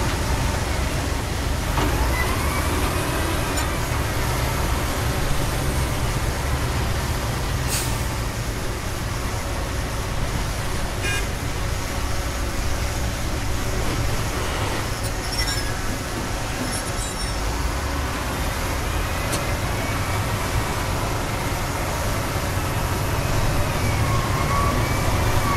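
Heavy diesel dump truck engine running steadily, its sound mostly low, with a few short clicks and faint squeals over it.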